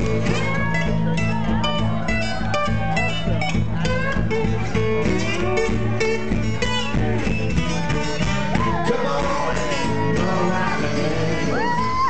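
Live acoustic band playing an instrumental passage, led by a picked acoustic guitar over held low notes, with a few gliding notes in the second half.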